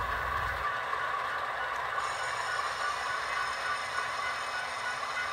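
Model diesel locomotives pulling a freight train slowly, their sound-decoder engine sound running with wheel clatter and rattle as the train is brought to a stop. A steady high squeal joins about two seconds in.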